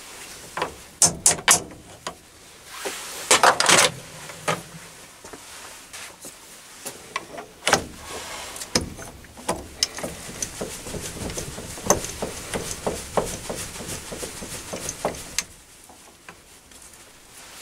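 Metal clicks and knocks from tooling being handled at a mini lathe's tailstock while the lathe is stopped. Three sharp clicks come about a second in and a rattling cluster about three and a half seconds in. Lighter scattered taps follow and stop a couple of seconds before the end.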